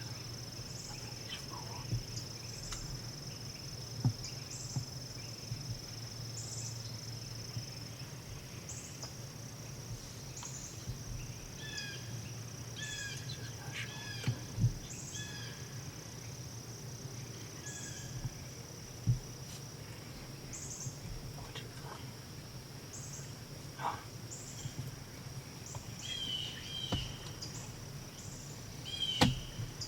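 Insects droning steadily with a regular chirping pulse over it. A bird calls in short repeated notes through the middle and again near the end, and a few sharp snaps or knocks stand out.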